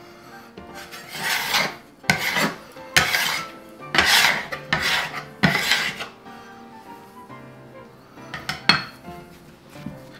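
Metal bench scraper scraping sticky, high-hydration pizza dough off hands and a wooden butcher-block board: about half a dozen rasping strokes in the first six seconds, then a few short knocks near the end.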